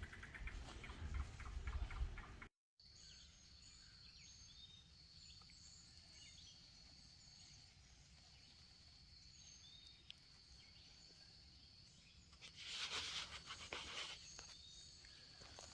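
Quiet woodland ambience: a faint, steady high-pitched insect drone with scattered short bird calls. A low rumble cuts off abruptly early on, and there is a brief rustle about thirteen seconds in.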